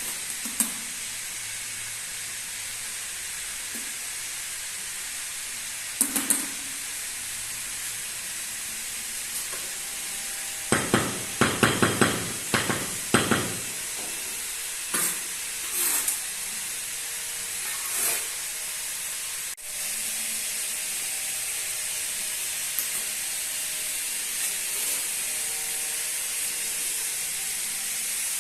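Electric arc welding on the steel legs for the fireplace: a steady crackling sizzle, with several sharp metal knocks in the middle.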